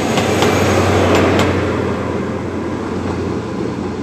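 High Speed Train (Class 43 diesel power car with Mk3 coaches) going away along the platform, the rear power car's engine running as it passes, and its wheels clicking over rail joints. The sound swells to its loudest about a second in, then eases off as the train recedes.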